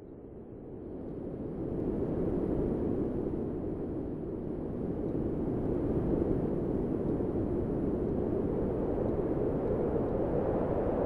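Wind sound effect: a deep, steady rushing that fades up over the first two seconds and then holds level.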